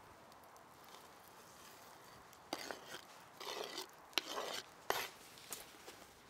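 Chopped herbs scraped off a wooden cutting board into a metal pot of soup, then a ladle stirring them in. It starts about two and a half seconds in, with a few short scrapes and sharp knocks of board or ladle against the pot.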